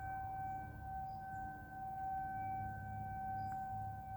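Outdoor tornado warning siren sounding one steady, held tone, heard at a distance, its loudness swelling and easing slightly as the rotating siren head turns.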